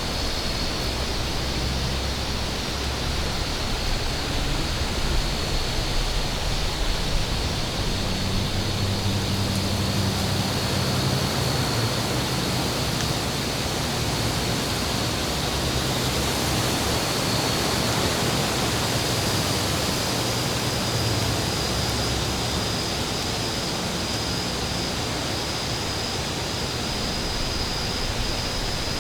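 Steady wind noise that swells a little, with a low rumble coming and going in the middle, and a faint high steady tone under it.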